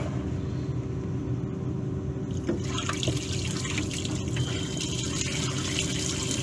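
Hot water pouring from a bucket over a frozen LP gas regulator and splashing into the snow beneath it, the pour getting fuller and brighter about two and a half seconds in. This is done to thaw the regulator, whose diaphragm has frozen in place from moisture.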